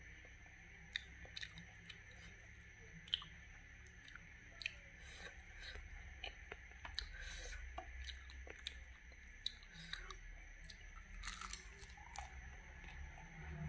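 Close-miked chewing of cooked wood larvae and rice, eaten by hand, with scattered sharp crunches and mouth clicks.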